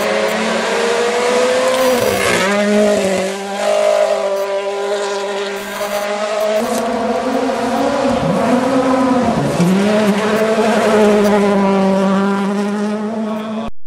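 Rally car engine at high revs, the car passing close on gravel, its pitch dropping and climbing back twice, about two seconds in and again near eight seconds.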